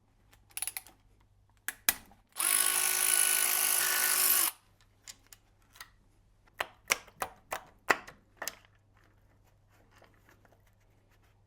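A power tool's motor runs steadily for about two seconds, undoing a Torx T30 bolt on the timing chain tensioner unit. Before and after it come scattered sharp metallic clicks and clinks from the tool and the bolts being handled.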